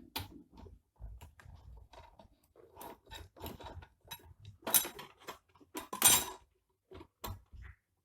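Irregular clatter and knocks of a replacement battery being handled and set into a UPS casing, with two louder knocks about five and six seconds in.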